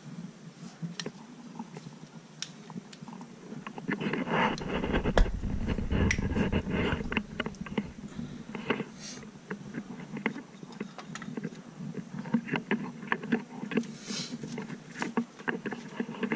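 Scattered clicks, knocks and rustles from a handheld camera being moved around, with a low rumble about four to seven seconds in.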